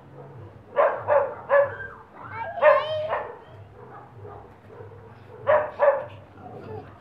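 A large white puppy barking in short, sharp barks while play-fighting: three quick barks about a second in and two more near the end. Between them comes a louder, high, wavering cry that rises and falls in pitch.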